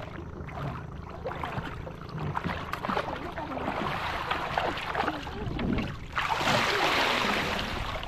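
Water splashing and sloshing as a plastic basket fish trap is hauled up through chest-deep water, with a louder rush of water about six seconds in as the trap comes up and drains.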